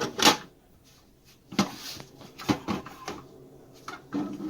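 Hard plastic parts of a humidifier being handled: a louder knock right at the start, then a few separate light knocks and clicks as the lid and tank are moved about.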